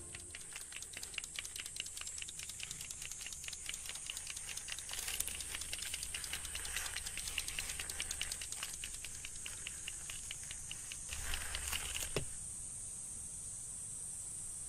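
Homemade spool tanks (rubber-band-wound thread spools with chopstick arms) ticking rapidly and evenly as they crawl, over a faint high steady hiss. The ticking stops with a single click about twelve seconds in.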